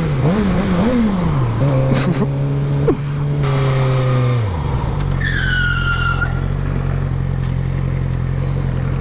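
Suzuki GSX-R600 inline-four engine rising and falling in revs several times, then running at a steady pitch that drops lower about halfway through. A short high tyre-squeal screech slides downward in pitch about five seconds in.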